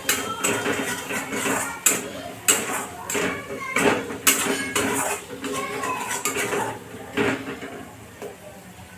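Metal spatula scraping and clinking against a metal kadai as tomato and masala are stirred, in irregular strokes that thin out and quieten near the end.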